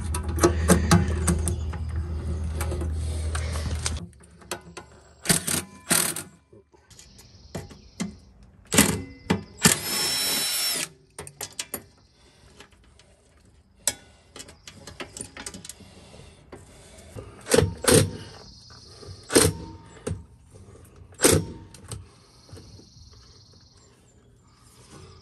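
Milwaukee cordless drill-driver backing out the screws that hold old zinc anodes on a boat. It runs steadily for the first few seconds, then comes in short bursts with metal clicks between them; the loudest burst is a brief high-pitched spin about ten seconds in.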